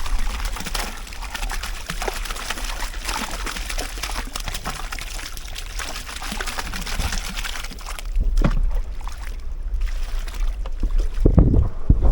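Water splashing and trickling, a dense run of many small splashes. After about eight seconds it gives way to wind rumble on the microphone.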